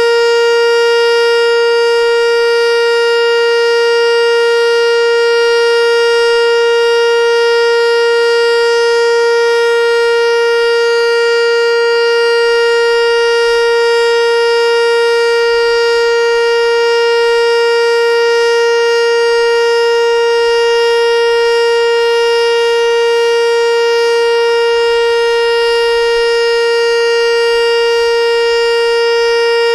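ASC T-112 electronic outdoor warning siren sounding its steady Alert signal: one loud, unwavering note held without any rise or fall.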